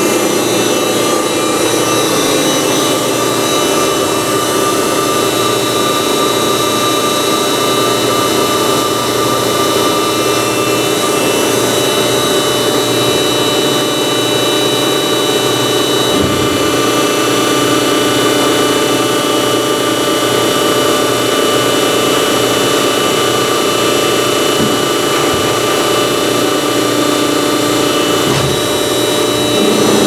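SELCO HL7 horizontal baler's hydraulic power unit running, its 15 hp three-phase electric motor driving the pump: a steady machine hum with a constant whine. One of the higher whining tones stops about halfway through.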